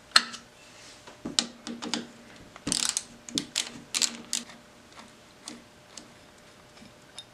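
Small socket wrench ratcheting in short runs of sharp clicks and scrapes while backing out the cover screws of a Harley-Davidson front brake master cylinder. The clicks come in irregular bursts and thin out to a few light taps over the last couple of seconds.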